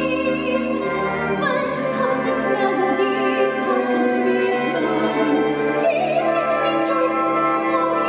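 A female soprano sings a slow musical-theatre song in a classical style, over sustained instrumental accompaniment.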